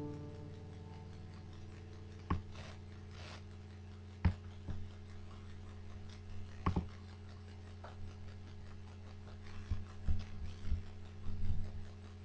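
The last guitar chord fades out within the first second, then scattered soft clicks and knocks of handling, a few loosely grouped near the end, over a low steady hum.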